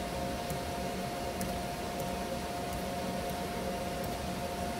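Steady machine hum with two steady tones, overlaid by a few faint, sparse clicks of keys being pressed one at a time on a Lenovo T480 laptop keyboard.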